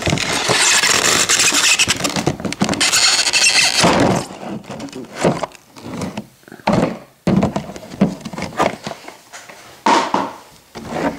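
Sealing tape being pulled off a box: a loud, harsh, screechy rip for about the first four seconds, then scattered short rustles, scrapes and knocks as the packaging is handled.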